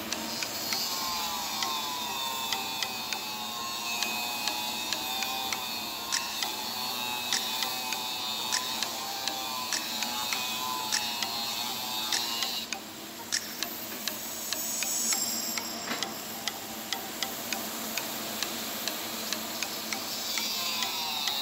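Pulsed TIG welding arc on 316L stainless steel pipe with filler rod: a steady hiss with regular ticks, about two to three a second, as the current pulses. The level dips briefly a little past halfway.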